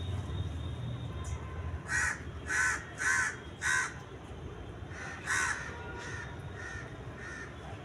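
A bird giving harsh, cawing calls: four in quick succession about two seconds in, one more about five seconds in, then a few fainter ones.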